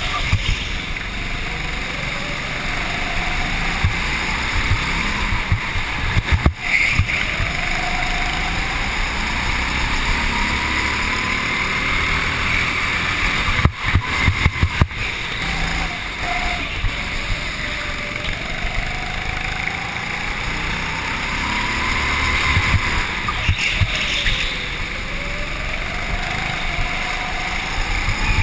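Go-kart motor heard from on board at speed, its pitch rising and falling again and again as it accelerates and slows. Wind and rattle on the kart are mixed in, with sharp knocks about six and a half seconds in and a cluster of them around fourteen seconds in.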